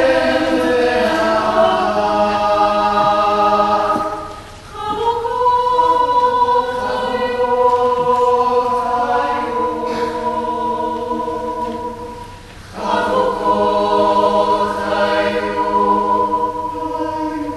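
Choir singing slow, long-held chords, with short breaks between phrases about four and a half and twelve and a half seconds in.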